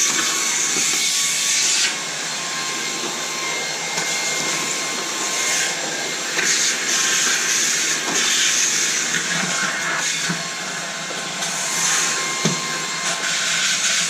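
Small handheld vacuum running steadily while it sucks up spilled cat litter: a rush of air with a thin steady whine, and a few brief clicks as grit goes up the nozzle, the plainest about twelve seconds in.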